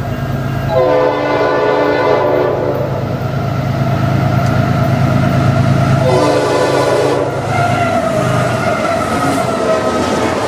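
Norfolk Southern freight train's diesel locomotive horn sounding two long chord blasts, about a second in and again about six seconds in, over the steady low rumble of the approaching train. The locomotives rush past near the end.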